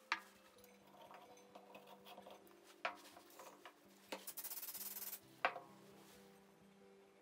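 Small wooden parts knocked and set down on a wooden worktable, a few sharp taps, with a rasping rub lasting about a second just after the middle, over quiet background music with held notes.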